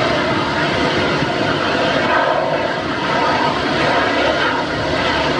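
Airbus A319 airliner's jet engines running at low taxi power as it rolls past, a steady jet noise with no change in pitch.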